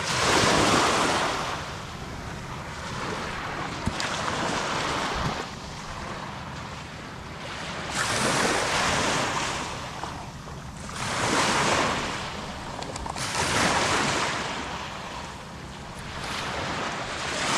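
Small waves breaking and washing up a pebbly sand beach, each surge swelling and fading roughly every three seconds.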